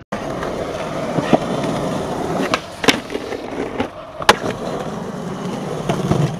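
Skateboard wheels rolling on rough concrete, with a few sharp clacks of the board; the loudest two come about a second and a half apart, the later one being the board landing after a jump over a ledge.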